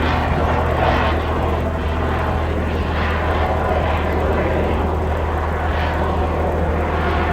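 Jet-assisted aerobatic aircraft with a piston engine and propeller, its engine running under power in flight. The sound swells and fades every second or two as it manoeuvres.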